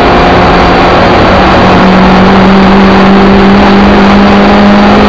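Suzuki Ignis Sport's 1.5-litre four-cylinder engine running hard at high revs, heard loud from inside the cabin. Its pitch climbs slightly about a second and a half in, then holds steady.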